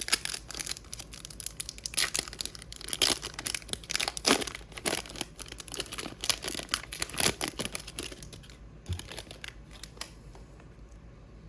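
Plastic wrapper of an Upper Deck hockey card pack being torn open and crinkled, with irregular crackling that dies down to quieter handling about eight seconds in.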